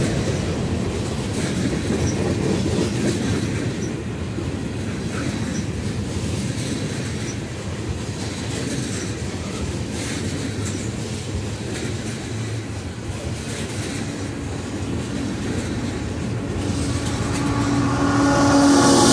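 CSX freight train's cars rolling past close by, a steady rumble of wheels on rail. Near the end it gets louder as a locomotive comes by, its engine note coming in.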